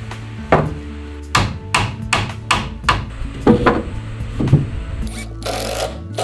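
Sharp wooden knocks, about nine in irregular succession over four seconds, as laminated cypress shelf boards are tapped into slots in the wall framing. A brief burst from a cordless impact driver comes near the end.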